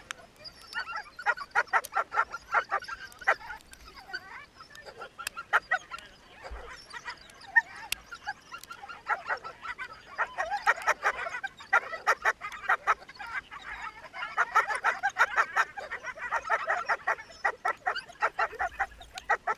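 A team of sled dogs in harness barking and yelping together, many rapid overlapping yelps that come in waves of a few seconds each.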